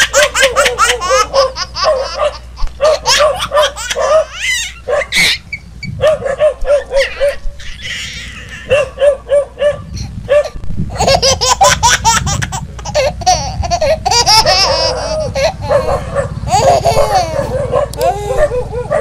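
A baby laughing in long runs of rapid, repeated giggles, a laughter sound effect laid over the footage.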